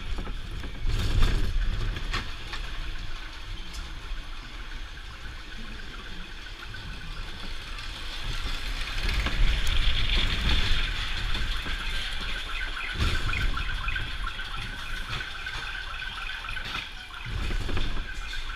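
Onboard a spinning car of a steel wild mouse roller coaster: a steady rumble and rattle of the wheels on the steel track, mixed with wind buffeting the microphone, broken by a few sharp jolts.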